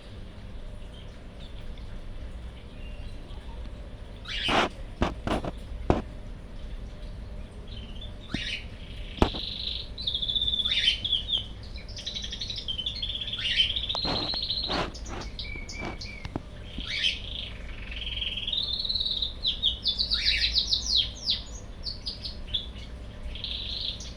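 Cockatiel singing: a long run of warbling whistles that glide up and down, getting busier in the second half. A few sharp clicks come in the first half.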